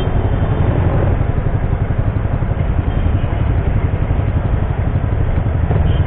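Yamaha scooter and the motorcycles beside it idling while stopped, a steady low rumble with street traffic noise around it.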